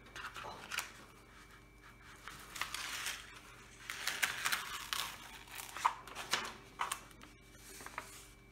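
The printed cover paper of a diamond painting canvas crinkling and rustling as it is peeled back off the glued canvas and smoothed down by hand, in several short irregular bursts.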